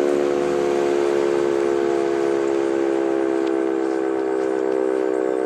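Sentry 7V8 outdoor tornado warning siren sounding its steady alert signal on a monthly test: a sustained chord of several tones held at one pitch.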